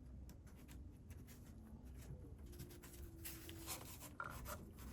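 Faint, scattered small clicks and scratches of a wire paper clip being worked through a hole in a plastic servo horn.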